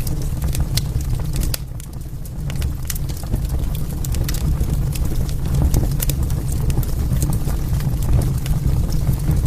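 Wood fire crackling in a fireplace: irregular sharp pops and snaps over a steady low rumble of the burning flames.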